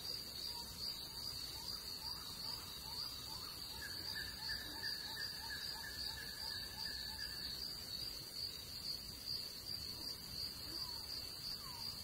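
Insects trilling steadily at a high pitch, cricket-like, with a run of short rising chirps, about two or three a second, and a second, lower trill joining from about four to seven seconds in.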